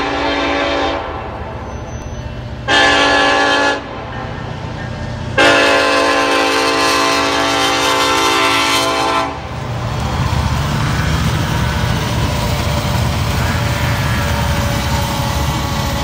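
Union Pacific SD70AH locomotive's third-generation Nathan K5LLA five-chime air horn sounding for a grade crossing: the tail of one blast, a short blast about three seconds in, and a long blast from about five to nine seconds in, the short-then-long close of the crossing signal. After the horn stops, the low rumble of the train rolling past.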